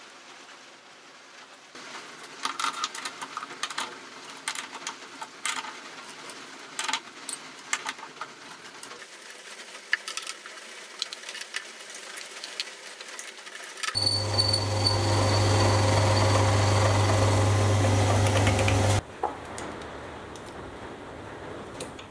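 Light metallic clicks and rattles as the mini lathe's four-jaw chuck and tooling are handled by hand, then the mini lathe runs steadily for about five seconds, with a low hum and a high whine, and cuts off abruptly.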